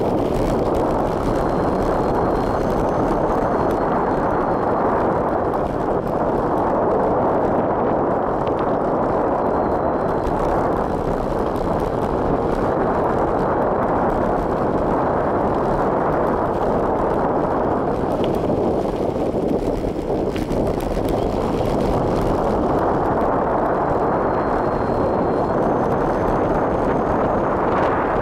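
Wind buffeting the microphone of a bicycle descending a mountain road at speed: a steady, dense, low rushing, easing briefly about two-thirds of the way through.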